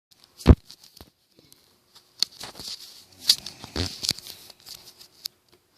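A short, loud low thump about half a second in and another about three seconds later, amid scattered clicks, taps and rustling.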